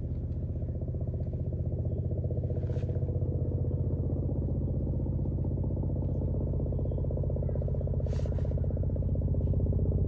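A steady, low, engine-like drone with a fast, even pulse, growing slowly louder.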